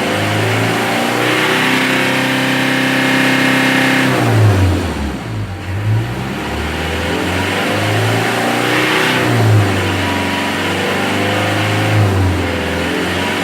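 Mitsubishi L300's 4D56 diesel engine being revved: held at raised revs for a few seconds, then dropping back, followed by several more rises and falls. It is being revved after a fuel-saver was fitted, to check for black exhaust smoke.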